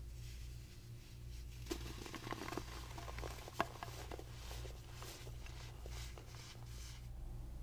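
Dry baking soda crumbling, a run of fine crackles and crunchy snaps that begins just under two seconds in and thins out toward the end, with one sharp crack about three and a half seconds in.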